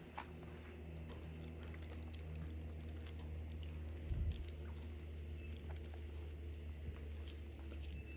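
Spider monkeys eating mashed sweet potato and scuffling over the bowl: faint chewing and small clicks over a steady low hum, with a thump about four seconds in.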